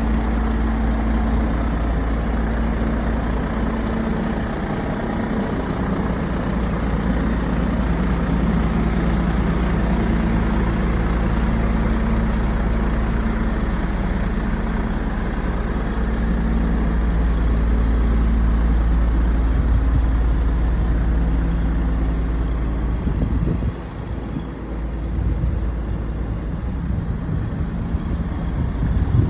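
Diesel engine idling steadily with a low hum. About three-quarters of the way through, the level drops and the sound becomes less even.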